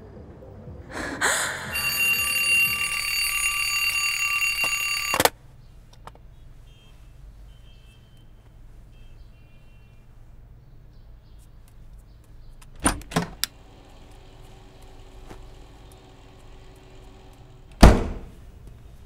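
Alarm clock ringing with a steady, shrill tone, cut off suddenly about five seconds in. Later come two quick knocks and, near the end, a heavy thump.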